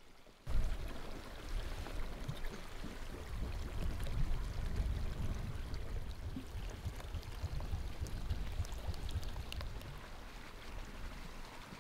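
Liquid poured in a thin stream from a clay jug into a wooden bowl, with a steady low rumble underneath.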